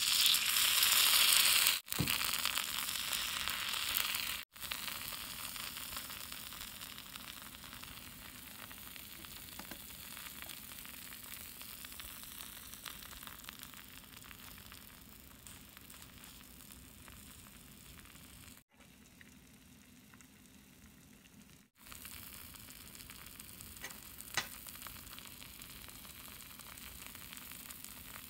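Batter sizzling in a small hot copper frying pan. It fries hard just after it goes in, then settles to a quieter, steady sizzle as it cooks. There is a single sharp tick near the end.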